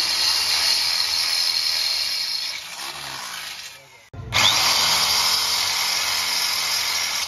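Electric drill boring into the metal exhaust muffler can of a KTM Duke 200 BS6 motorcycle, enlarging holes in the casing. The drill runs steadily, eases off about two and a half seconds in, stops suddenly at about four seconds, then starts again at full speed.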